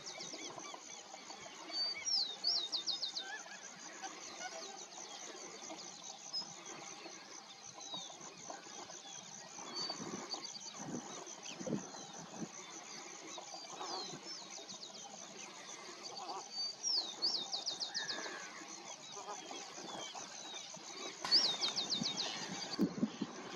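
A small songbird repeats a short, high, quick trilled song several times over a steady background chatter of a large flock of waterbirds, mostly coots, calling on the lagoon.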